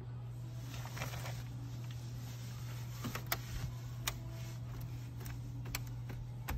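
Hands working a car's dashboard trim: a microfiber cloth rubbing and wiping over the surface, with several sharp small clicks and taps of fingers on the trim. A steady low hum runs underneath.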